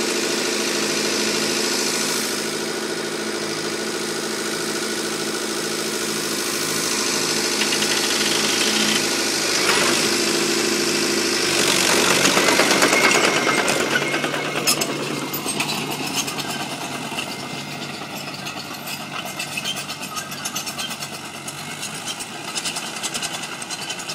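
Fiat 665C crawler tractor's diesel engine running steadily, then revving up hard about ten seconds in as it takes up the load of winched logs. Its sound drops back as it drives off, with a fast rattling clatter from the moving crawler.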